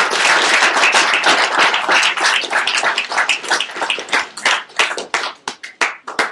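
Audience applauding, many hands clapping together at first, then thinning out to a few scattered claps over the last couple of seconds.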